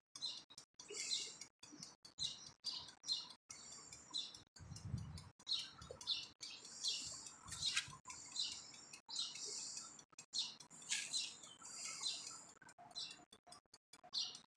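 Small birds chirping repeatedly in short high calls, with a brief low rumble about five seconds in.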